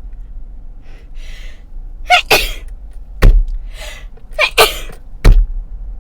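A woman sneezing twice, each sneeze starting with a sharp intake of breath and ending in a sharp thump.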